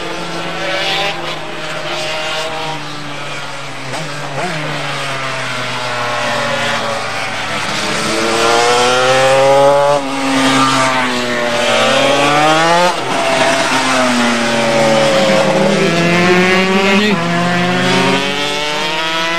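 Honda RS250 two-stroke V-twin racing motorcycles at race speed, several engines overlapping, their pitch climbing through the revs and falling sharply several times at gear changes and as bikes pass. Louder in the second half.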